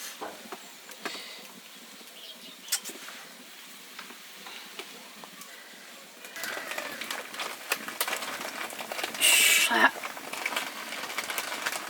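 Scattered light clicks and knocks of kitchen handling, busier in the second half, with a short high-pitched voice about nine seconds in.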